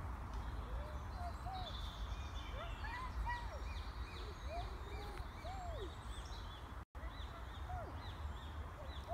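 Birds calling: a run of short calls, each rising and falling in pitch, mixed with fainter, higher chirps from small birds. The sound cuts out briefly about seven seconds in.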